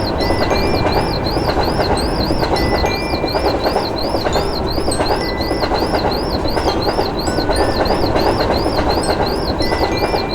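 Train passing over a level crossing while the crossing's warning signal keeps ringing, a high repeating tone about three times a second.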